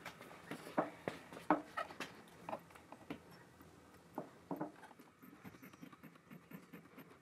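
A series of irregular light clicks and taps, the firmer ones in the first two seconds and again about four to five seconds in.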